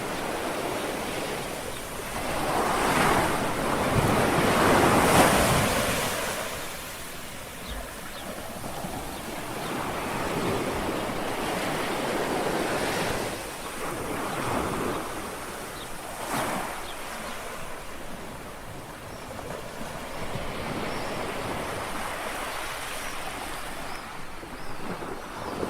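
Small sea waves lapping on a shore: a continuous wash of water with several gentle swells, the largest a few seconds in.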